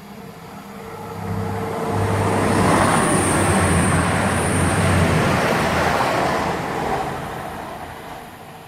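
An East Midlands Trains diesel express train passing through the station at speed: engines running under power and wheels rushing over the rails. It builds to a peak a couple of seconds in, with a high whine at its loudest, then fades as it runs away.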